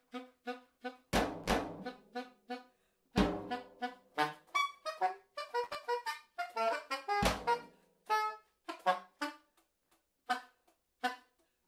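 Saxophone and drum kit playing together. The saxophone plays short, separated notes, and loud drum-and-cymbal strikes land about one, three and seven seconds in.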